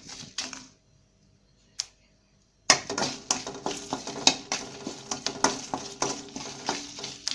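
Spatula scraping and knocking against a pan as dried red chillies and curry leaves are stirred while sautéing. The stirring stops for about two seconds just after the start, with one click in the pause, then resumes with quick, repeated strokes.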